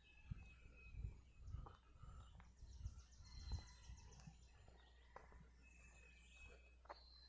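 Faint outdoor ambience of small birds chirping, with one fast trill a few seconds in. Low thumps come and go through the first half.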